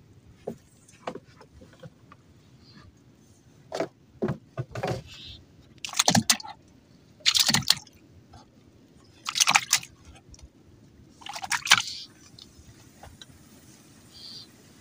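A series of short wet splashes and slaps of water around a small wooden boat, a few light knocks first and then four loud splashes about two seconds apart.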